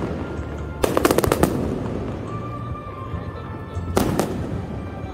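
Aerial firework shells bursting overhead: a rapid string of sharp bangs about a second in, and another cluster of bangs about four seconds in, over a steady low rumble.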